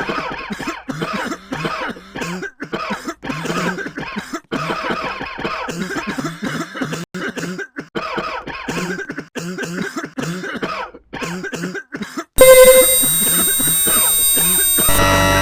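A person coughing over and over in short, rapid fits. Near the end it is cut off by a sudden, much louder blast of harsh electronic music-like noise with steady tones.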